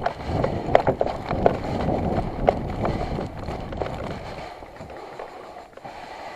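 Footsteps and gear rattling as an airsoft player moves on foot, irregular clicks and knocks over a low rumble on the microphone that eases off about four and a half seconds in.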